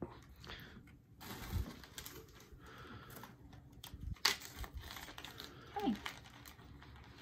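Tissue paper and a small plastic bag crinkling and rustling as earrings are unwrapped by hand, with scattered small clicks and a sharper tap a little after four seconds in.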